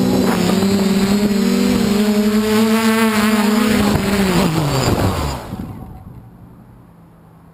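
DJI F450 quadcopter's four motors and 8-inch propellers humming steadily, then winding down together with a falling pitch about four seconds in and stopping: the motors are throttled down and shut off at the end of the flight. A faint rustle of wind remains after they stop.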